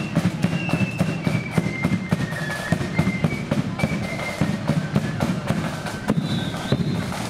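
Marching flute band playing a tune: flutes carry a high melody over rapid, sharp snare drum strokes and a bass drum beat.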